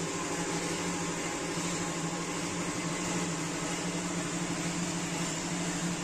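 Steady drone of a running blower fan: an even low hum with a hiss over it that does not change.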